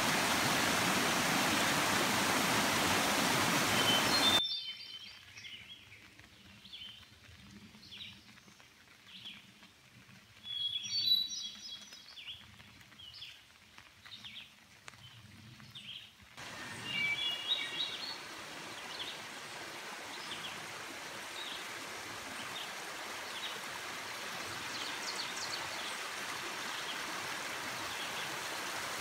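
Water of a small stream rushing over rocks that cuts off suddenly about four seconds in. It gives way to a quiet forest where songbirds sing in short high chirping phrases. After about sixteen seconds a gentler brook runs steadily, with birds still calling over it.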